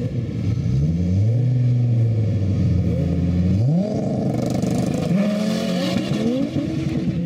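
Two car engines revving at a drag-race start, their pitch rising and falling, then both cars launching about four seconds in and accelerating away, with pitch rising and dropping at the gear changes.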